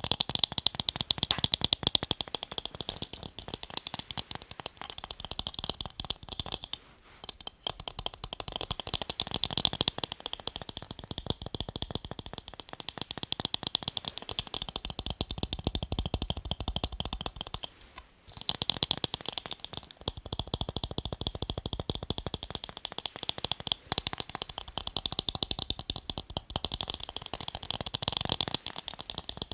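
Rapid tapping on a pair of eyeglasses: a dense run of quick, crisp clicks and rattles, pausing briefly about seven and eighteen seconds in.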